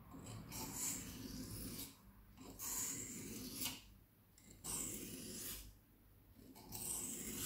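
Knife blade scraping back and forth across a wet whetstone to grind a new edge on a badly damaged knife. There are four strokes of about a second each, with short pauses between.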